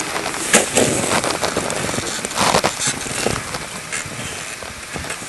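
Rustling, crackling handling noise with a few sharp clicks as an angler reels a tullibee up on a short ice-fishing rod, with a louder rustle about two and a half seconds in.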